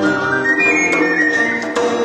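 Live acoustic music: a flute plays a stepping high melody over a strummed plucked-string accompaniment.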